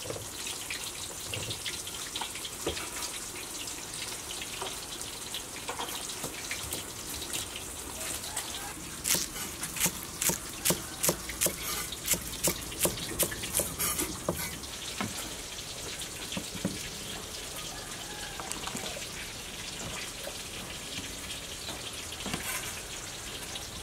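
Steady sizzling hiss of fish frying in oil in a wok. Between about 9 and 14 seconds a cleaver chops green onions on a wooden cutting board, about a dozen strikes at roughly two a second.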